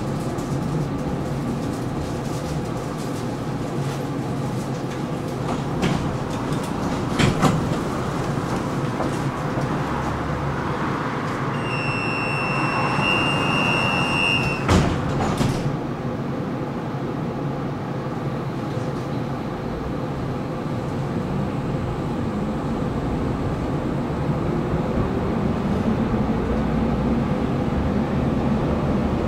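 Tram interior at a stop, then pulling away: a steady cabin rumble with a few knocks, and about twelve seconds in a three-second electronic door-closing warning tone, followed by a thump as the doors shut. Near the end the traction motors' whine rises as the tram accelerates.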